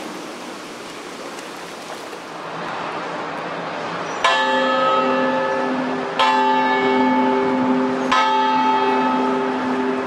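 The Delta Queen's steamboat bell, made by the Kaye Co. of Louisville, struck three times about two seconds apart, each stroke ringing on into the next.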